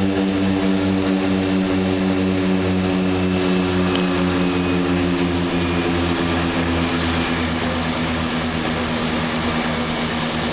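Twin turboprop engines and propellers heard inside the cockpit during the landing rollout: a steady drone with a throb about twice a second from the two propellers running slightly out of step. The pitch sinks slowly as power is brought back on the overhead power levers and the aircraft slows.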